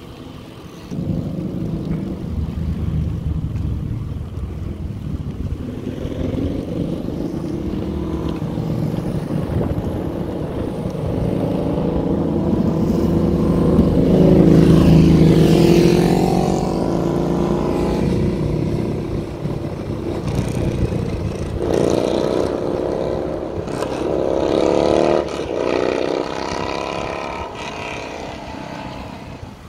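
Steady wind and road rumble while riding a bicycle along a street, with a car passing close by about halfway through as the loudest moment.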